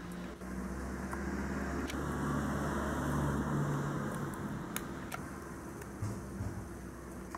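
Low background rumble with a steady hum, swelling about three seconds in and then easing off, with a few faint clicks.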